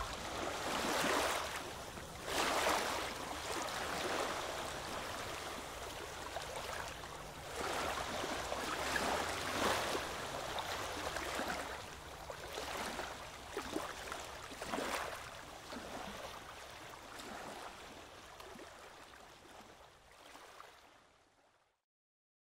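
Surf washing on a beach in irregular surges, slowly fading out near the end.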